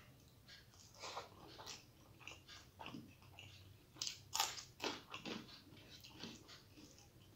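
Close-up mouth sounds of eating rice by hand, with a few sharp crunches about four seconds in as a fresh green chilli is bitten.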